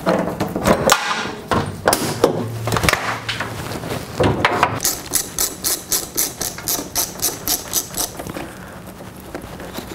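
Jeep Wrangler JK's hood being unlatched and raised: a series of metal clunks and knocks as the latches release and the hood lifts and is propped. Then, from about five seconds in, a ratchet wrench clicking in a quick even run, about four or five clicks a second, as the battery terminal is loosened to disconnect the battery.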